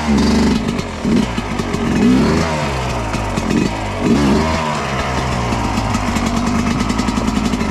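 Dirt bike engine running, revved up and down several times, then settling to steadier running for the last few seconds.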